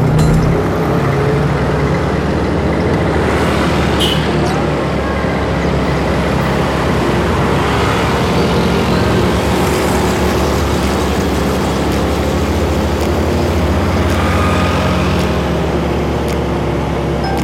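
Motorcycle engine running steadily while riding, heard from the bike itself, under an even rush of road and wind noise.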